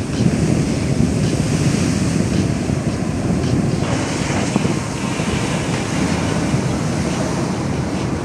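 Heavy shorebreak waves breaking and churning white water, a steady loud wash with a deep rumble, with wind buffeting the microphone.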